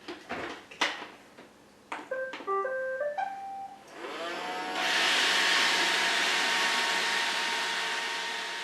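Roomba robot vacuum starting up: a few clicks, then a short melody of beeps, then its vacuum motor whirring up at about four seconds into a loud, steady running noise with a high whine.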